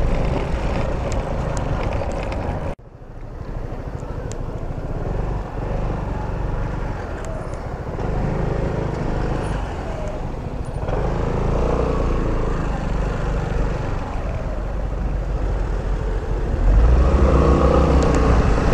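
Scooter engine and road noise with wind on the rider's microphone while riding. The sound drops out sharply about three seconds in, comes back, and grows louder near the end.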